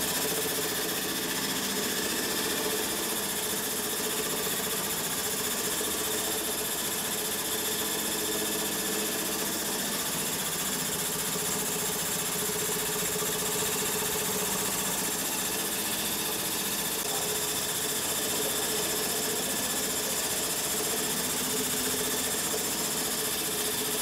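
Electric coffee mill running steadily as it grinds roasted coffee beans, the motor and grinding burrs making an even mechanical whir.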